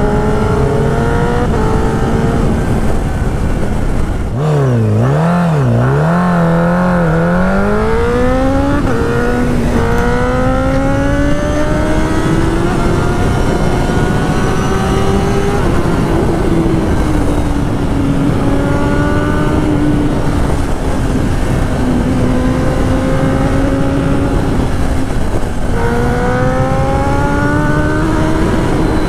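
Honda CBR Fireblade's inline-four engine under way, heard from the rider's seat. A few quick throttle blips swing the revs up and down about five seconds in, then the engine note climbs slowly and drops back at gear changes, over a steady rush of wind noise.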